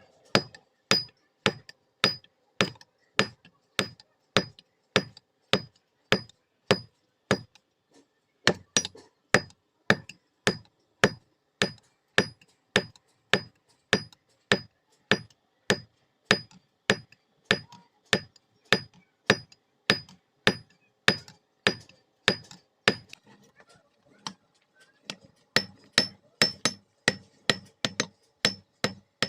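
Blacksmith's hammer striking iron on an anvil at a steady pace of about two blows a second, each blow ringing; the hammering pauses briefly about 24 seconds in.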